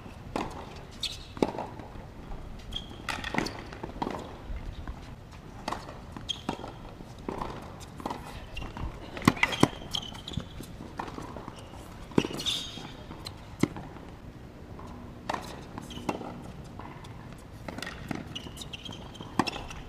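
Tennis balls being struck with rackets and bouncing on a hard court during a rally: a string of sharp, irregularly spaced pops.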